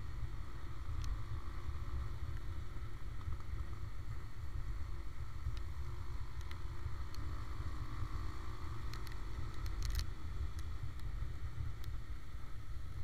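Wind buffeting the microphone of a camera on a moving motorcycle, with a faint steady engine hum underneath. Scattered sharp ticks come through, several of them close together about nine to ten seconds in.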